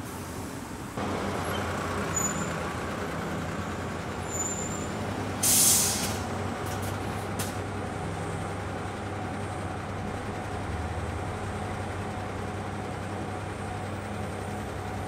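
Heavy diesel vehicle idling with a steady low hum that steps up about a second in. About five and a half seconds in comes a short, sharp hiss of air brakes venting, followed by a couple of faint clicks.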